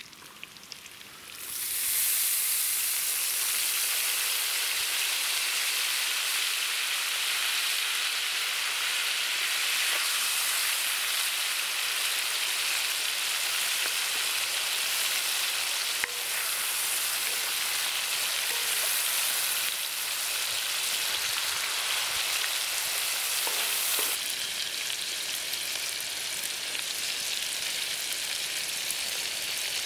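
Meat and onions sizzling hard in hot fat on a steel harrow-disc pan, stirred now and then with a wooden spoon. The frying starts loud about a second and a half in and eases a little over the last few seconds.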